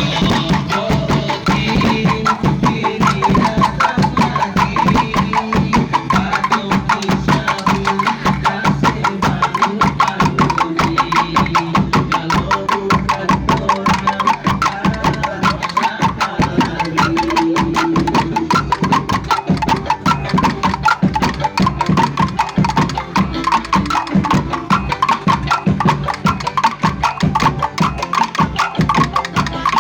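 Music with a fast, steady percussion beat of closely spaced clicks over pitched instruments.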